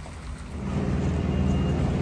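About half a second in, a low, steady rumble of a truck's engine rises and runs on, with a faint high beep near the end.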